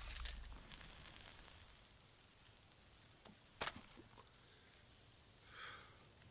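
Very quiet film ambience: a faint low hiss with a few small clicks, one sharper tick about three and a half seconds in, and a brief soft breathy sound near the end.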